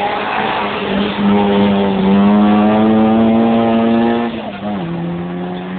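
A hill-climb race car's engine at full throttle as the car drives up the course, its pitch rising slowly while it gets louder. About four and a half seconds in, the pitch steps down suddenly and then holds steady.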